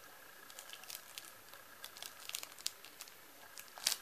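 Scattered small crinkles and clicks of plastic being handled, with a louder crackling click near the end as a hand takes hold of the graded comic's hard plastic slab.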